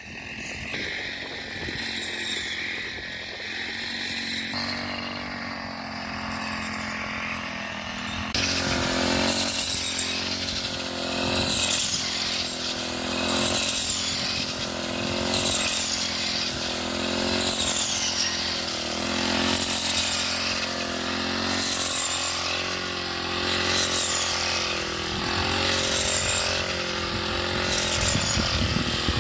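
Small engine of a hand-guided mini combine harvesting wheat, running steadily. About eight seconds in it gets louder, with a rhythmic swish repeating roughly once a second.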